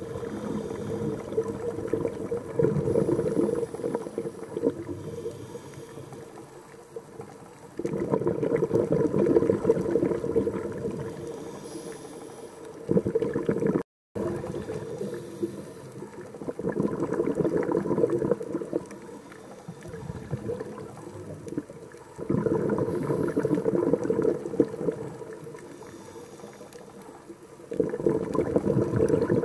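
Scuba diver's exhaled breath bubbling out of the regulator, heard underwater: bursts of about three seconds recurring every five to six seconds, with quieter inhalations between.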